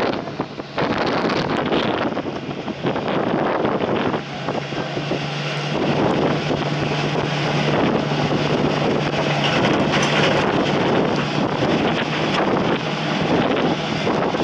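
Strong wind buffeting the microphone in gusts, over a steady low machine hum.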